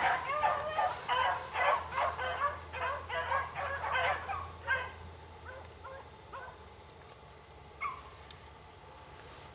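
Pack of beagles baying on a rabbit's track, the hounds in full cry on a running chase. The baying is strong and rapid for about five seconds, then fades away, with one short cry near the end.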